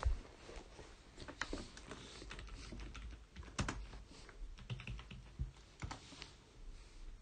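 Typing on a computer keyboard: irregular keystroke clicks, with a louder key press at the start and another about three and a half seconds in.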